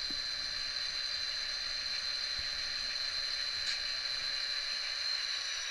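HO-scale model diesel locomotives running slowly on track, their small electric motors and gears giving a steady high-pitched whine over a soft hiss.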